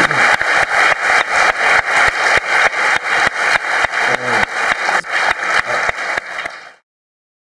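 Audience clapping in unison, a steady rhythmic beat of about four claps a second, fading out and stopping near the end.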